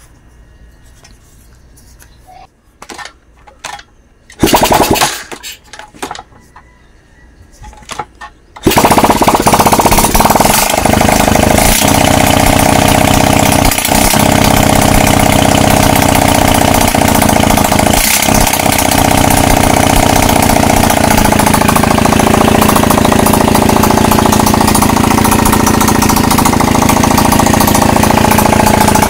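Yamaha Crypton four-stroke single-cylinder motorcycle engine being started on a newly wired 4-pin battery-operated CDI: a short loud burst of cranking about four seconds in, then the engine catches about eight seconds in and runs loudly and steadily, showing the ignition wiring works.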